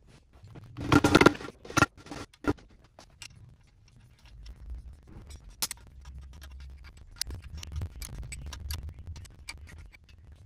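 Metal parts and a wrench clinking on an engine crankcase: a burst of metallic clatter about a second in, a few single clinks after it, then a run of small sharp ticks and clicks as a combination wrench tightens nuts, with a low rumble under them.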